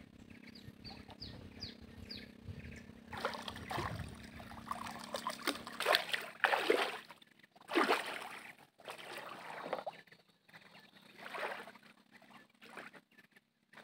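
Muddy river water splashing and sloshing in a string of surges as a person wades in up to the chest. A few short high chirps sound in the first two seconds.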